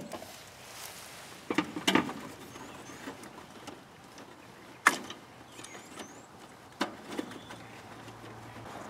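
Wires with push-on spade connectors being fitted to the terminals of a new capacitor in a heat pump's outdoor unit. About five sharp clicks and knocks, a second or more apart, come over a low rustle of handling.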